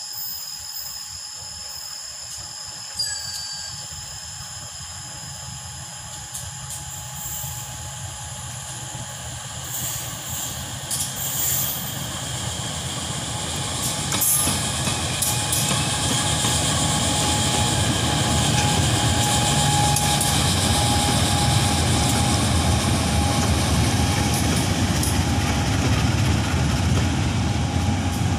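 Diesel-electric locomotive hauling a train of open coal hopper wagons approaches and passes. The rumble of the engine and the rolling wheels grows steadily louder, then the wagons roll by on the rails. A thin steady whine joins in about halfway.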